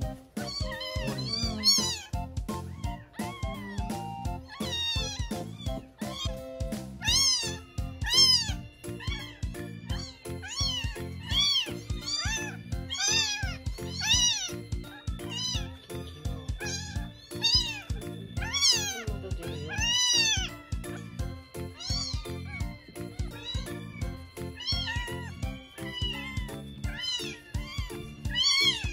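A newborn kitten mewing over and over: short, high cries that each rise and fall, many in a row. Background music plays along.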